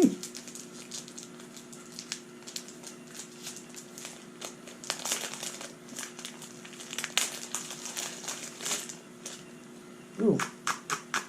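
Packaging being handled and opened by hand during a speed-cube unboxing, crinkling in irregular bursts. A few sharp clicks come near the end.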